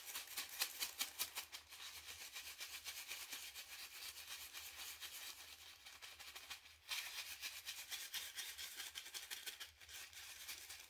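Resin diamond-painting drills rattling inside a small plastic zip bag as it is shaken, with a coin in among them: a faint, fast, dense rattle that stops briefly a little under seven seconds in. The shaking is meant to discharge drills that cling by static.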